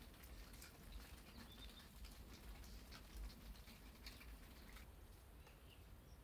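Near silence: faint outdoor ambience with scattered light ticks and a few faint, short high chirps.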